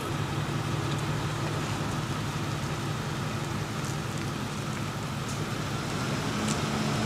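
Vehicle engine running with a steady low hum under an even hiss, with a few faint ticks.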